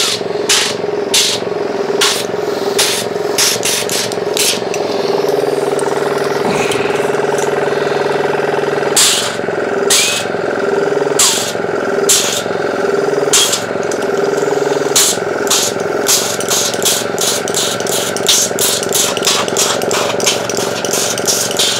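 Small electric air compressor running with a steady hum, while a blow gun on a coiled hose fires short hissing blasts of compressed air, few at first and then many in quick succession in the second half, blowing dust out of a laptop's fans and heatsink.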